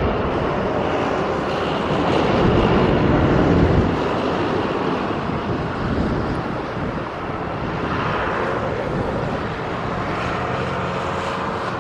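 Steady engine rumble of outdoor traffic or passing aircraft, swelling a little a few seconds in.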